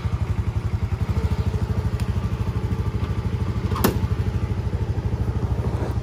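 Motorcycle engine idling with an even, pulsing beat. One sharp click comes near the middle.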